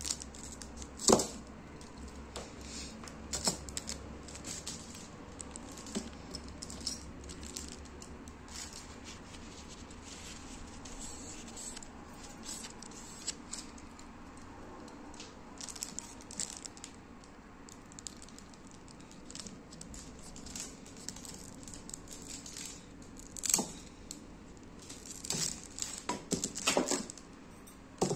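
Scissors snip through a lucky bamboo stalk with one sharp cut about a second in. After that, aluminium foil crinkles and rustles in scattered bursts as the stalks are handled on it, with a run of louder crinkles near the end.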